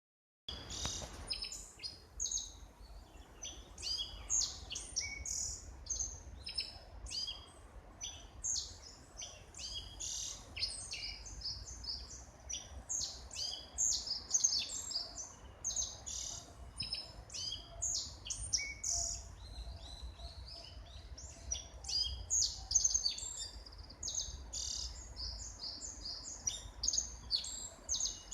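Wild birds chirping and singing, many short, quick high calls overlapping almost without pause, over a low steady rumble.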